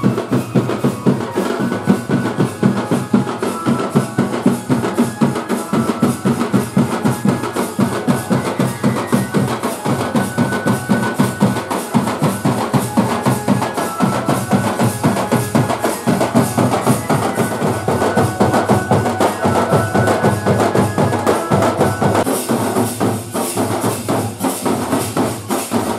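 Drum-and-cymbal wedding band playing a fast, steady rhythm: drums and large hand cymbals beating dense regular strokes, with a thin melody line heard now and then over them.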